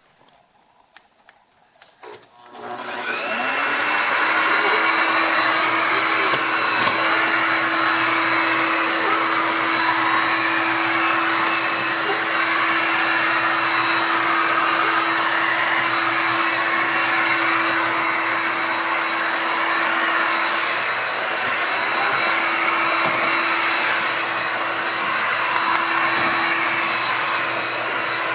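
Shark HydroVac wet-dry vacuum mop switching on about two and a half seconds in, its motor whining up in pitch and then running steadily.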